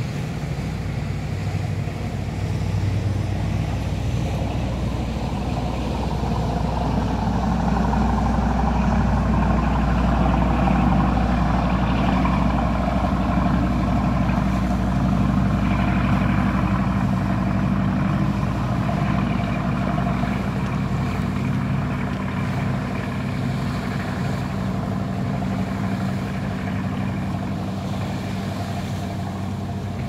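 Motorboat engine droning as the boat passes below, growing louder to a peak partway through and then slowly easing off, with the rush of its wake on the water.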